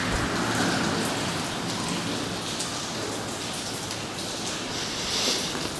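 Steady rain falling, heard from inside a derelict building with a broken roof.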